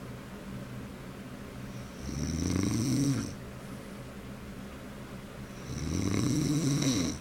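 A man snoring in his sleep, a growling snore: two long snores about four seconds apart, each rising and then falling in pitch.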